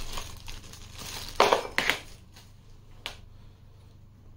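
Clear plastic zip-lock bag crinkling and crackling in the hands, with two louder crackles about a second and a half in, then a single light click about three seconds in.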